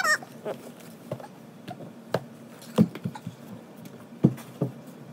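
Irregular light knocks, taps and thumps of dolls and toys being handled and set down, with a brief high squeak right at the start.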